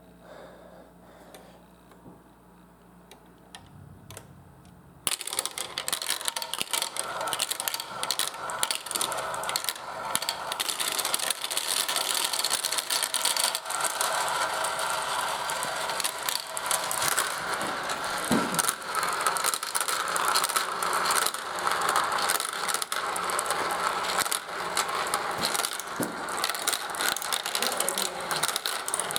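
Marbles clattering through a plastic marble run: a dense, fast rattle of clicks that starts suddenly about five seconds in, after a few seconds of faint sound.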